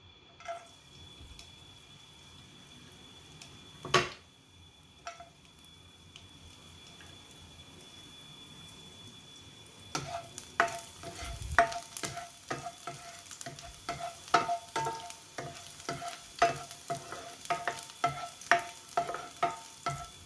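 Minced garlic sizzling in hot oil in a nonstick frying pan, with a single knock about four seconds in. From about ten seconds in, a plastic spatula scrapes and taps against the pan in quick strokes as the garlic is stirred.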